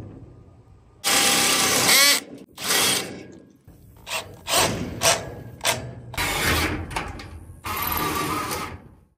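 Cordless DeWalt drill driving hex-head screws through a steel gate tube into a wooden runner. The motor whirs in several separate runs, speeding up and then stopping, with the longest and loudest runs near the start.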